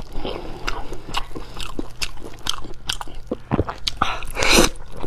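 Close-miked eating sounds: wet chewing and biting into a piece of braised meat in chili oil, a string of small smacking clicks with a louder bite near the end.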